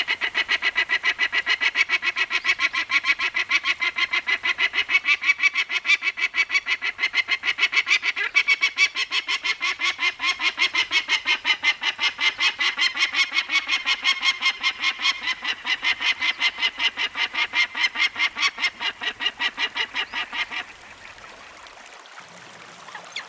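Cooper's hawk calling: a long, fast series of repeated cackling notes, about five a second, that stops abruptly near the end.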